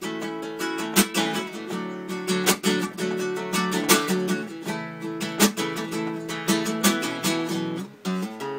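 Classical acoustic guitar played solo: sustained chords and notes, with sharp accented strums about every second and a half.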